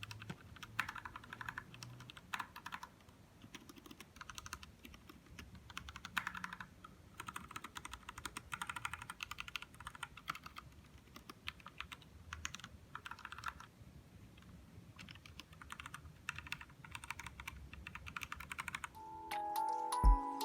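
Typing on an RK61 60% mechanical keyboard fitted with PBT keycaps: runs of quick key clacks with short pauses between them. Music comes in near the end.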